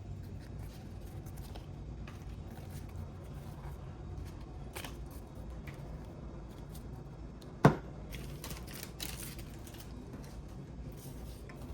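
Pokémon trading cards handled and flipped through, cards sliding and tapping against one another in light ticks, with one sharp click about two-thirds of the way in.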